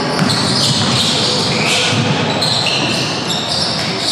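Basketball being dribbled on a gym floor during a game, with steady crowd chatter.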